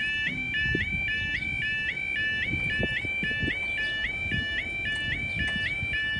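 Railway level crossing yodel alarms sounding: a two-tone warble alternating between a lower and a higher pitch about two and a half times a second, with two alarms sounding together slightly out of step.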